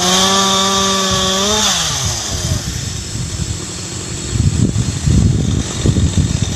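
Two-stroke chainsaw held at high revs, then the revs fall away about a second and a half in. It runs low and uneven for the rest.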